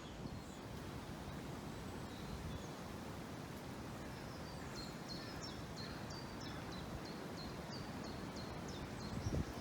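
Wind blowing steadily through woodland trees, a continuous rustling hiss. Through the second half a small bird sings a run of short, high repeated notes, about two a second.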